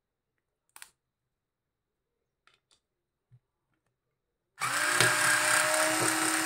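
Flipkart SmartBuy 3.6 V cordless screwdriver running in reverse, backing a screw out of plywood. It starts about four and a half seconds in and runs steadily, after a faint click early on.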